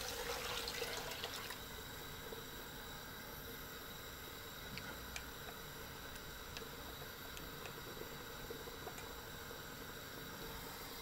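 Stock being poured into a stovetop pan of softened onions and peppers, a liquid pour in the first second or so. After it comes a faint steady hiss with a few soft ticks.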